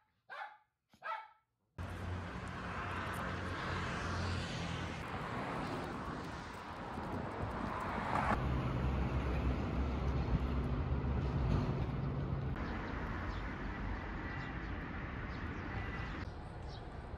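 A poodle barks a couple of times, short and sharp. About two seconds in, it cuts to steady street noise with road traffic and a low rumble.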